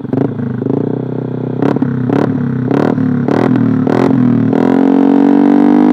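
Yamaha Aerox 155 single-cylinder scooter engine with an Eternal aftermarket racing exhaust, revved while stationary: the revs climb with a run of sharp crackling pops, then hold at a steady high drone from about four and a half seconds in.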